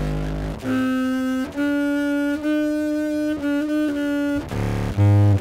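Contrabass clarinet sample played back from a looper through a fuzz pedal and a graphic EQ with the low end boosted: one very low note, then a run of held higher notes, then lower notes again near the end, each note a dense fuzzed tone.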